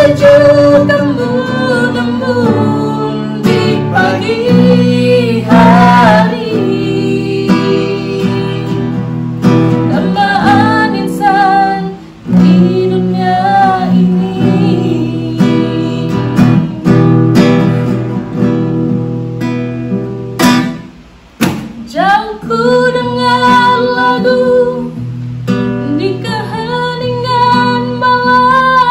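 A song playing: a voice singing over plucked acoustic guitar, with two brief drops in level, about twelve and twenty-one seconds in.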